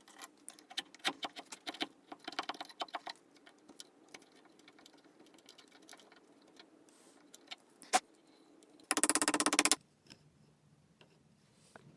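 Light clicks and taps of tools and wood being handled, then a single loud click, and a brief, rapid, even rattle lasting under a second.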